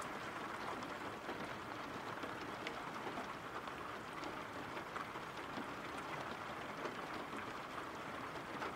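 Steady rain falling, an even hiss with small scattered drop ticks.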